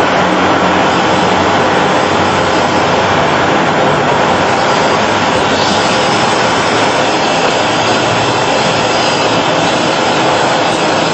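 Steady, loud machinery noise of an automated loudspeaker assembly line: an even rushing hiss with a faint low hum underneath.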